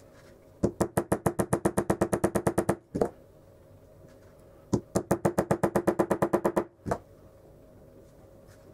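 Rapid light hammer taps, about ten a second, in two runs of about two seconds each, each run followed by one separate knock.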